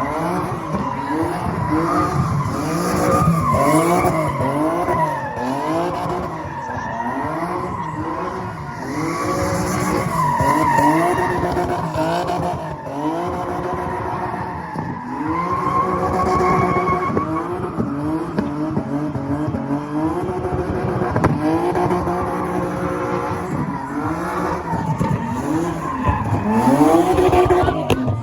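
A car engine revving up and down over and over, its pitch rising and falling about once a second, with tires skidding and squealing as the car spins in a spin-off.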